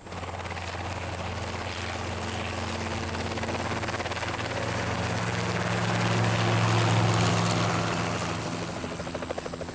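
Helicopter engine and rotor droning overhead, growing louder to a peak about seven seconds in and then easing off as it passes.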